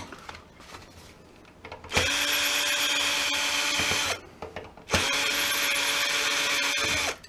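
Ryobi cordless drill/driver backing screws out of a CRT projection tube's metal mounting bracket: two runs of steady motor hum, about two seconds each, with a short pause between. The drill starts about two seconds in.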